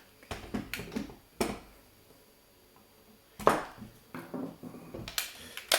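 Clicks and knocks of a CYMA CM.098A airsoft rifle being handled as its upper receiver is taken off, with a few separate handling noises and the loudest knock about halfway through.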